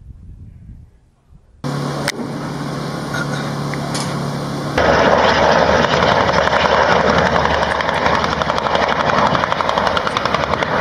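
Helicopter in flight. A steady engine hum comes in suddenly about a second and a half in, then a louder, rapid, even rotor beat takes over from about five seconds on.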